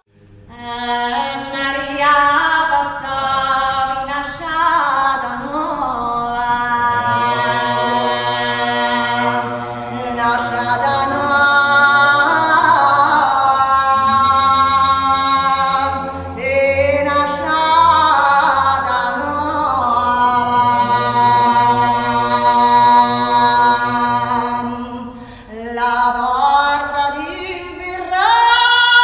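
A woman singing unaccompanied, holding long notes that slide and bend between pitches. At times a low steady drone sounds beneath her voice.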